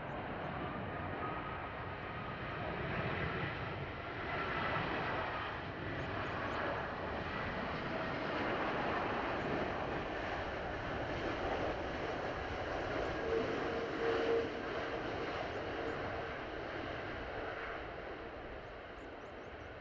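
British Airways Airbus A380's four Rolls-Royce Trent 900 turbofans on final approach, landing gear down: a steady rushing jet noise with faint whining tones over it. A brighter whine rises out of it briefly about two-thirds of the way through, and the sound eases a little near the end.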